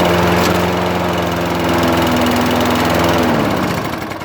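Toro Recycler 20332 mower engine, just started, running steadily at speed, then its pitch sags and it slows to low revs about three and a half seconds in. The owner blames the low running speed on a clogged carburetor.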